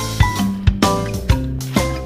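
Background music: short, bright pitched notes over a steady bass line, with a beat of about two hits a second.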